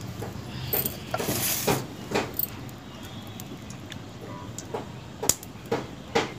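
Scattered clicks and knocks from hands working thekua dough close to the microphone, with a short hiss about a second in.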